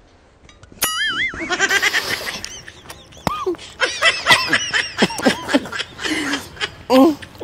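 A warbling comic sound effect starts about a second in, over the sour-face reaction to biting a lemon, followed by music and laughter.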